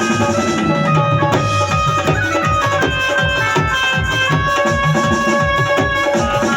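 Dhol drumming in a fast, dense rhythm, the bass strokes bending down in pitch, over a sustained melodic line.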